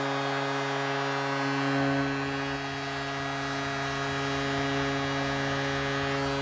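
Arena goal horn sounding one long, steady blast over crowd noise, signalling a home-team goal.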